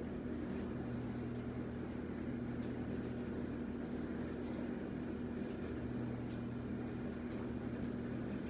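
Steady low hum with a faint background hiss and a few soft ticks.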